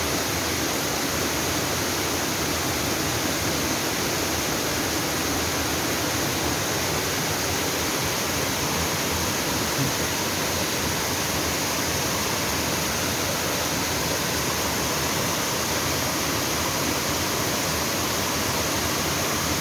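Waterfall pouring into a mountain stream, a steady, unbroken rush of water.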